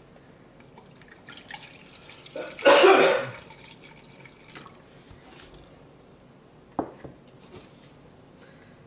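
Water poured from a plastic water bottle into a plastic measuring cup: one splash of just under a second, about two and a half seconds in. Small clicks come before it, and a single sharp knock comes later.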